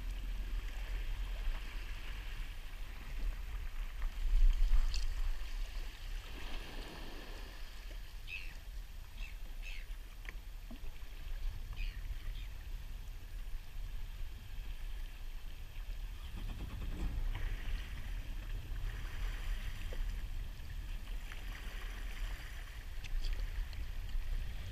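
Water lapping and sloshing against a fishing kayak's hull, with wind rumble on the microphone. A few short high sounds come a few seconds into it, and the sloshing swells twice.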